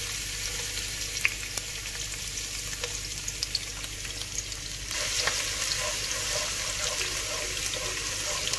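Chopped garlic sizzling in hot oil in a pan, a steady hiss with scattered small pops. The sound grows a little louder about halfway through, and a wooden spatula stirs it near the end.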